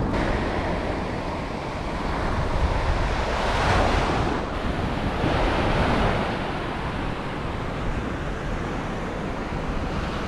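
Surf breaking and washing up the beach, with wind buffeting the microphone. The wash swells a little about four seconds in and again near six seconds.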